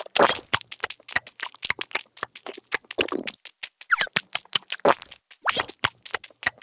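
Cartoon sound effects: rapid light clicking, about eight to ten clicks a second, for the ants' scurrying. A few short squeaky gliding sounds come from the larva characters, at the start, around four seconds in and again about a second later.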